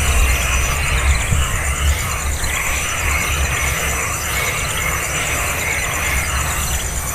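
Baby birds begging, shrill squealing calls coming in repeated bursts about once a second, over a steady high insect buzz and a low rumble.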